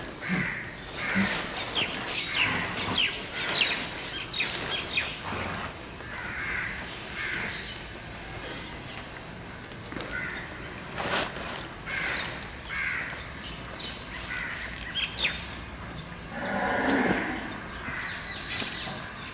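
Farmyard sounds: small birds chirping and crows cawing again and again, with one animal call about a second long near the end, most likely a cow mooing.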